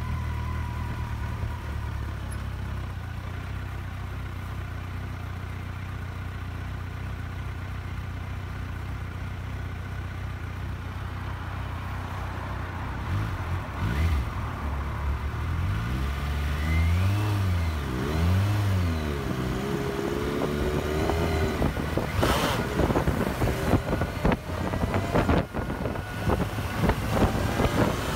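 Kawasaki Versys 1000's inline-four engine running low and steady at near-idle, then revving up as the bike pulls away. Its pitch rises and drops back with each upshift. Wind buffeting on the microphone grows as speed builds near the end.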